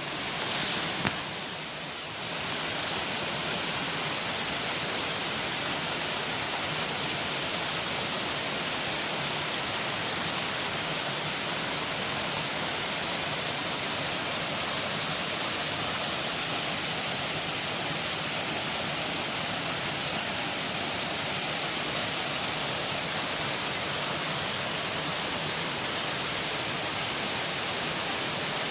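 Amicalola Falls, a steady unbroken rush of falling water. There is a brief bump about a second in.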